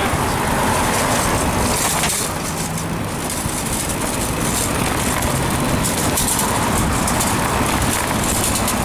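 Steady road traffic noise from passing cars, mixed with a low wind rumble on the microphone of a moving bicycle.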